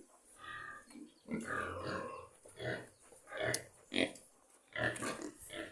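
Pigs grunting: a run of about seven short grunts, some rising into brief squeals, with gaps of under a second between them.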